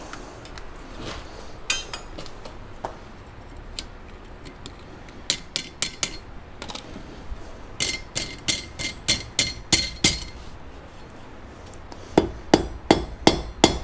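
Hammer blows setting a heated iron rivet in a pair of blacksmith-made fireplace tongs, struck on the anvil. A few scattered taps come first, then fast runs of sharp ringing strikes, about four or five a second, in the middle and again near the end.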